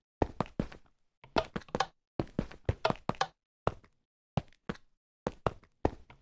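A series of sharp knocks in quick groups of two to four, with short irregular pauses between the groups. Each group cuts off abruptly into dead silence.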